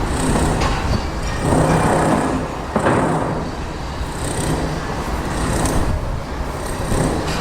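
Construction site ambience: a heavy machine's engine running steadily, with a single sharp knock about three seconds in and short high hissing sounds recurring every second or so.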